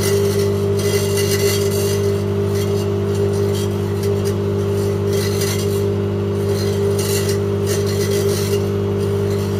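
Microwave oven running with a loud, steady mains hum, while plasma inside gives an irregular hissing crackle that comes and goes every second or so.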